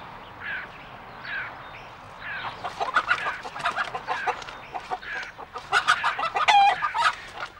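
Chickens clucking, with short calls repeating about once a second and a quicker run of clucks in the second half.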